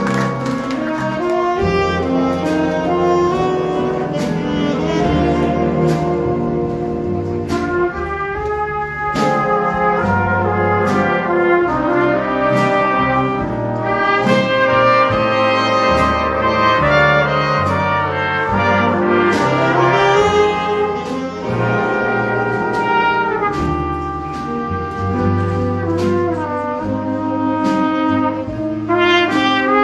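A high school big-band jazz ensemble playing, with trumpets and trombones carrying the lines over bass and a steady beat of drum and cymbal strokes.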